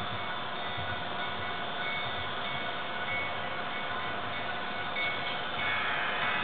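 Model train running on a layout: a steady whirring with faint ringing tones, growing louder about five and a half seconds in as the train comes closer.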